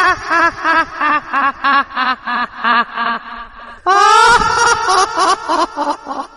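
High-pitched cackling laugh of a horror ghost or witch voice, a rapid 'ha-ha-ha' that slows and drops in pitch. A second bout of cackling starts about four seconds in.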